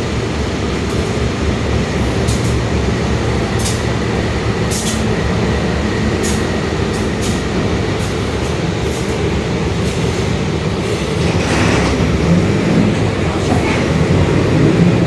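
Mercedes-Benz OF-1721 Bluetec 5 bus under way, its four-cylinder diesel running with a steady low rumble, scattered sharp clicks over it, and the differential growling. The running noise grows louder in the last few seconds.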